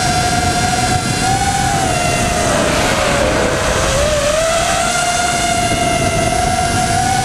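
Motors and propellers of a radio-controlled camera aircraft, heard from on board: a steady whine over a rushing noise. The whine's pitch sags about three seconds in and climbs back a second or so later.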